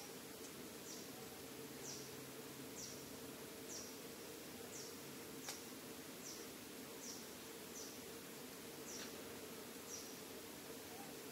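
Outdoor ambience: a short, high, falling chirp repeats about once a second over a steady low hum, with one faint click about halfway through.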